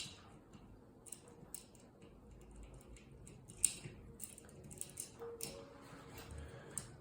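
Faint, irregular small clicks and taps of a metal fan mounting bracket and screw being fitted against a ceiling electrical box, with one sharper tap about three and a half seconds in.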